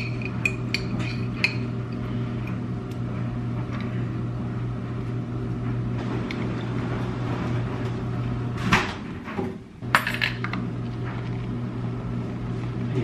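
A metal fork clinking and scraping against a glass jar as banana pepper rings are forked out, the light clinks ringing briefly in the first second or so, with a couple of louder knocks and scrapes later on. A steady low hum runs underneath.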